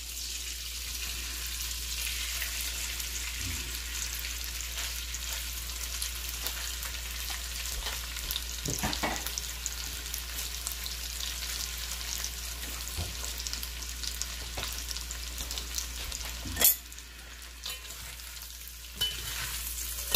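Chicken strips frying in hot oil in an enameled cast-iron pot: a steady crackling sizzle. A few sharp knocks of a spoon against the pot stand out, the loudest about two-thirds of the way through.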